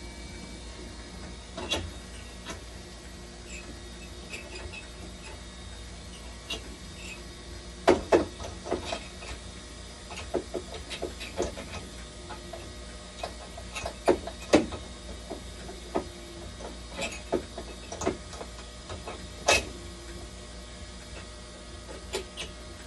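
Irregular sharp clicks and knocks as parts inside a dialysis machine are handled and worked on, over a steady low hum.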